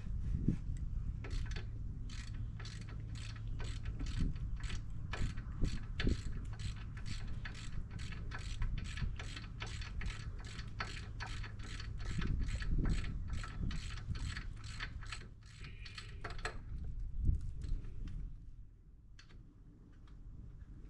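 A ratchet clicking in a steady rhythm of about three clicks a second, working on the forklift's lift-cylinder fastenings or rigging; it stops about sixteen seconds in. A low steady hum lies underneath.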